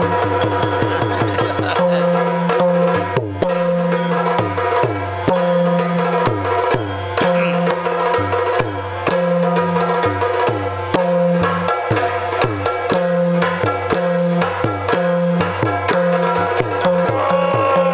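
Yakshagana percussion music: a chende drum beaten in rapid strokes, with a deeper drum alternating between two low notes, over a steady drone.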